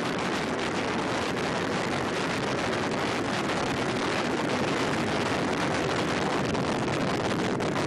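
Soyuz rocket's liquid-fuelled engines during the climb just after liftoff: a steady, dense rumble shot through with continuous crackling.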